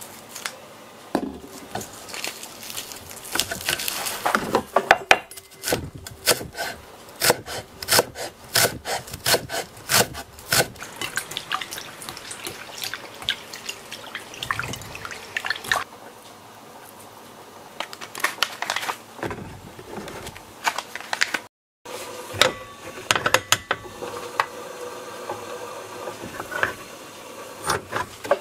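Kitchen knife shredding negi (long green onion) on a wooden cutting board, a quick run of taps, followed by hands swishing the fine strands in a steel bowl of water. After a brief cut, scattered light clatter.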